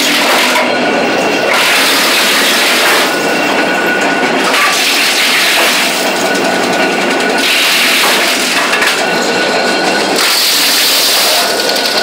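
Belt-driven electric wood chipper chipping branches as they are fed in: a loud, continuous crackle and splintering of wood being cut into chips. It surges about every two to three seconds as each piece is bitten.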